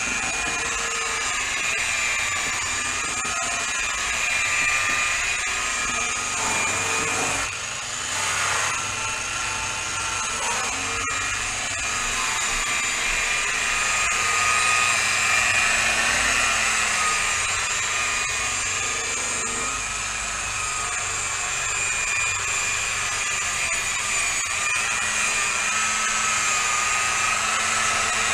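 Corded electric rotary polisher running with a buffing pad on a freshly spray-painted steel car fender, buffing out the sanded paint. The motor gives a steady whine that wavers slightly in pitch, with a brief dip about seven seconds in.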